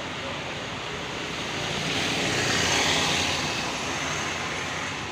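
Road traffic noise with one vehicle passing close: its rushing noise swells from about two seconds in, peaks, and fades.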